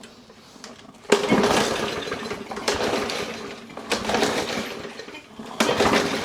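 Murray 22-inch push mower being pull-started: four quick yanks on the recoil starter cord, each a sudden whirring rush that dies away, with the engine turning over but not catching. The mower won't start after sitting.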